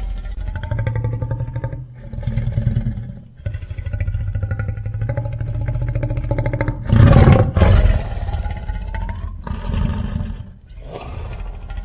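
King Caesar's kaiju roar sound effect: a string of deep, growling roars with short breaks between them. The loudest and harshest roar comes about seven seconds in.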